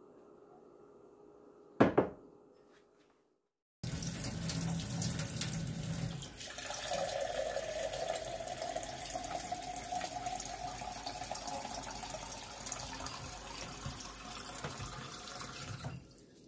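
Water running from a PUR faucet-mount filter into a drinking glass in a stainless steel sink. It starts abruptly about four seconds in and stops near the end. Before it, one loud sharp knock about two seconds in.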